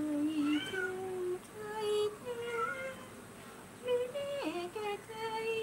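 A woman humming a slow melody in long held notes, stepping from one note to the next.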